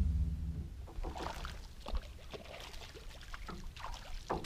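A hooked bass splashing and thrashing at the water's surface beside a boat, a run of irregular splashes with a louder one near the end. A steady low hum cuts off about half a second in.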